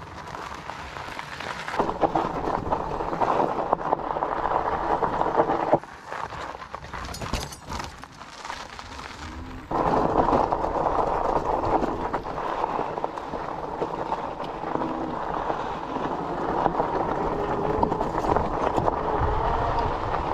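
MagiCycle Cruiser Pro electric fat-tire bike riding over a rough dirt and gravel trail: a steady rushing of the tires on the loose ground, with wind on the handlebar camera's microphone. The noise drops away for about four seconds in the middle, then comes back suddenly.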